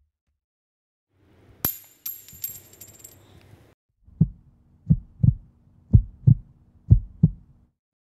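Logo-intro sound effect: a sharp metallic clink with a high ring and a few smaller clicks, then a slow run of paired low thumps like a heartbeat, about one pair a second, over a faint low hum.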